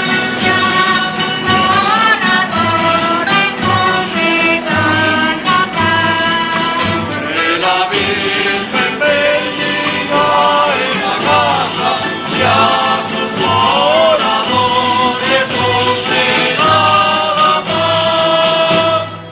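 A group of voices singing a traditional dawn song (aurora) in chorus, over instrumental accompaniment with a steady beat of percussion strikes.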